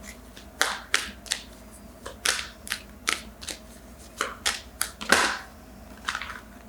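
A deck of oracle cards being shuffled by hand: a quick, irregular run of crisp card snaps and slides, with one louder riffle a little after halfway.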